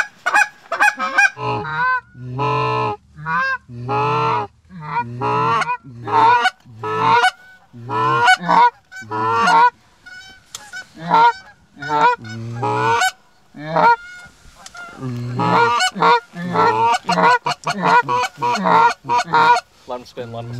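Canada goose calling: loud, rapid runs of honks and clucks with short pauses between them.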